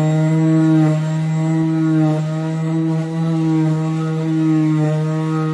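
Bielmeier corded electric mouse (detail) sander, a single-speed model, running at full speed on a strip of wood with a 60-grit pad. It makes a steady, loud buzzing hum, and its note wavers slightly as it is pressed on the wood.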